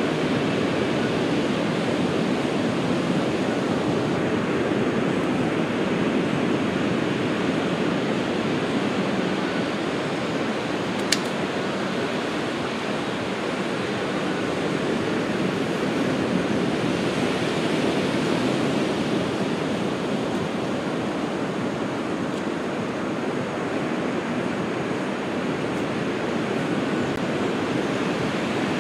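Ocean surf washing steadily onto a beach, with one sharp click about eleven seconds in.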